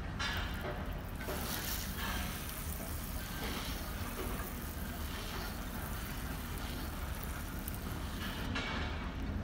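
Hand-pump pressure sprayer hissing as it sprays water onto potting soil, stopping near the end, over a steady low rumble.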